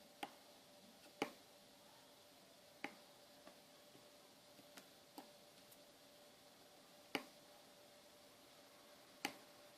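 Tactile push buttons on a DSO138 oscilloscope kit being pressed: faint, sharp single clicks, about eight at irregular intervals of one to two seconds, over a faint steady hum.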